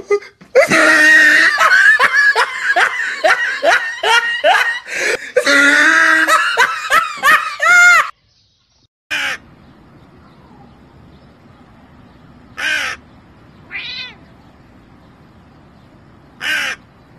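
Loud, high-pitched vocal sounds for about eight seconds, rising and falling with quick repeated yelps, like laughter. After a short silence, a crow caws four separate times over a faint steady hiss.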